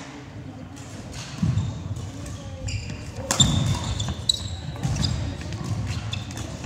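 Badminton doubles rally: court shoes squeaking sharply on the wooden hall floor and feet thudding as players lunge, with crisp racket strikes on the shuttlecock. The footfalls and squeaks pick up about a second and a half in.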